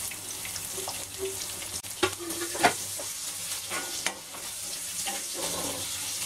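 Freshly added diced onions sizzling in hot oil in a metal kadhai, stirred with a wooden spatula that knocks against the pan a few times.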